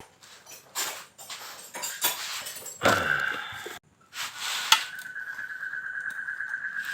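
Metal parts and tools clinking and knocking during engine reassembly work, then, from about two-thirds of the way in, a steady high-pitched whine starts and keeps going.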